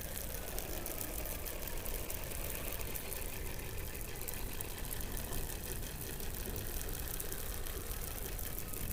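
Underwater hydrophone sound from below the Antarctic ice: a steady, dense crackle of fine clicks with a few faint gliding tones beneath it.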